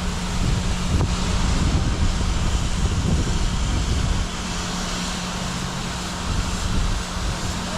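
Wind buffeting the microphone over a steady low hum. The rumble eases slightly about halfway through.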